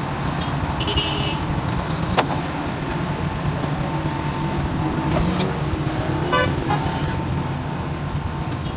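Hitachi EX300 excavator's diesel engine running steadily, with scattered short clicks and rattles, the sharpest about two seconds in.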